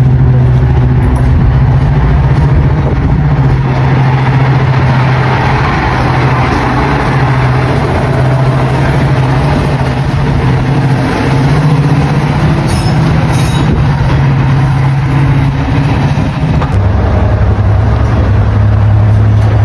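Class 55 Deltic diesel locomotive's Napier Deltic engines running with a loud, steady drone, dropping to a lower note about seventeen seconds in.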